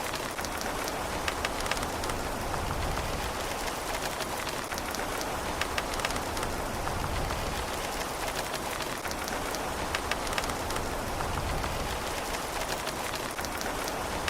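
Steady rain falling on a surface, a continuous hiss with many individual drops ticking through it and no thunder.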